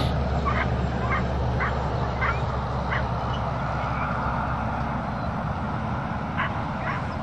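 Dogs barking, a run of short barks about two a second, a pause, then two more barks near the end, over a steady low rumble.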